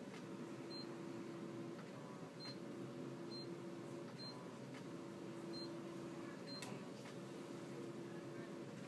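Short, high key-press beeps from an IV infusion pump's keypad as it is programmed, six of them at uneven intervals. Underneath is a faint low hum that comes on and off about every two seconds.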